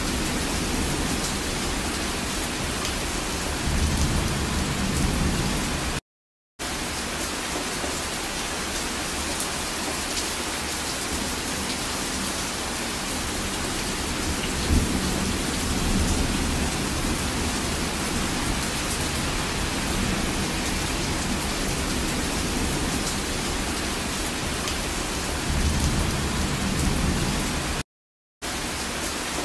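Steady rain falling, an even hiss of a rainstorm, with low rumbles of thunder about four seconds in and again a few seconds before the end. The sound cuts out to silence briefly twice, about six seconds in and near the end.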